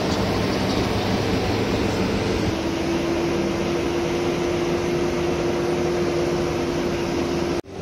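Road, wind and engine noise inside a moving vehicle's cab, loud and steady, with an engine hum that steps down in pitch about two and a half seconds in.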